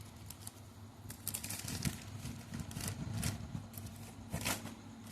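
Plastic packaging being handled and opened: irregular crinkling, rustling and sharp clicks, over a low steady hum.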